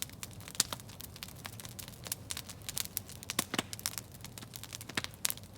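Wood campfire crackling: irregular sharp pops and snaps, a few louder than the rest, over a low steady hiss.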